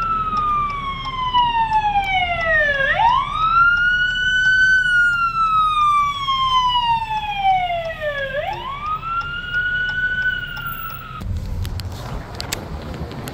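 Ambulance siren wailing, heard from inside a car: a slow falling tone, then a quick rise, repeating about every five and a half seconds. It stops abruptly about eleven seconds in, leaving a rushing noise.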